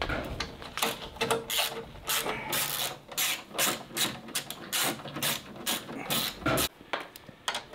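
Brisk rhythmic scrubbing strokes, about three a second, as soot is cleaned by hand from the inside of a diesel generator.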